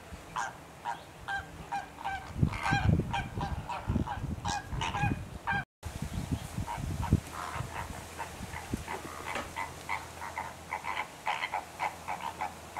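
A flock of greater flamingos calling: a steady run of short, goose-like honks, several a second, with a few low rumbles in the first half and a brief dropout about six seconds in.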